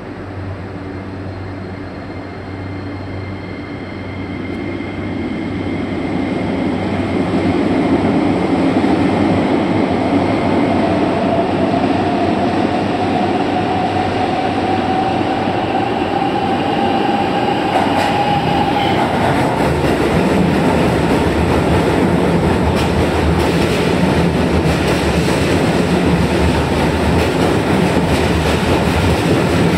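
Keisei 3100 series electric train running out of the tunnel into an underground station and past along the platform, the rumble of its wheels on the rails building as it comes near. A faint tone rises slowly in pitch midway through.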